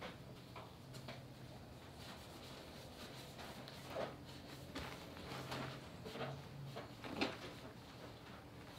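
Faint clicks and clacks of a caulking gun being squeezed as it runs a bead of seam sealer along a body seam, with a louder clack about four seconds in and another near the end, over a steady low hum.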